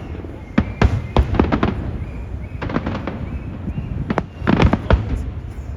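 Fireworks display bursting overhead: a rapid series of sharp bangs in clusters, about a dozen in all, over a steady low rumble.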